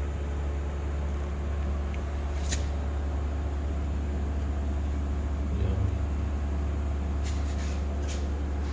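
Steady low hum of a running electrical appliance, with a few faint clicks about two and a half seconds in and near the end.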